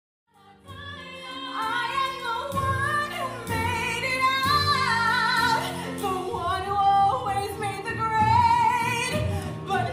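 A young woman singing a musical-theatre solo with vibrato through a headset microphone, over instrumental accompaniment. The music comes in out of silence just after the start.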